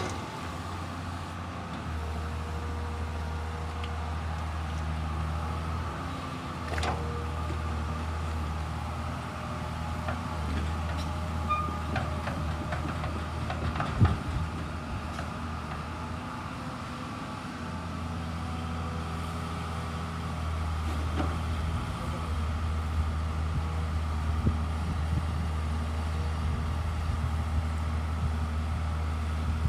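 Komatsu PC210 excavator's diesel engine running steadily, its low hum strengthening and easing in stretches as it works, with a few sharp knocks, the loudest about fourteen seconds in.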